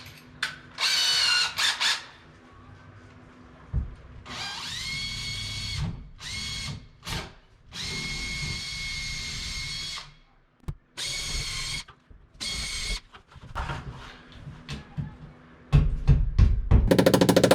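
Electric drill with a 1/4 inch bit boring anchor holes in a ceiling, in several short runs, its motor whine climbing as each run spins up. Near the end comes a loud, fast rattle.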